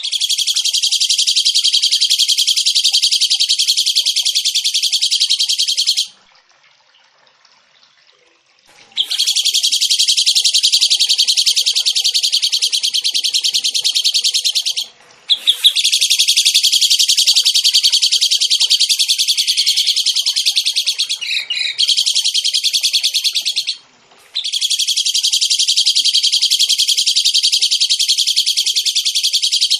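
A songbird singing long, very rapid rolling trills in four bouts of about six to eight seconds each, with short pauses between them; the trill drops briefly in pitch about twenty seconds in.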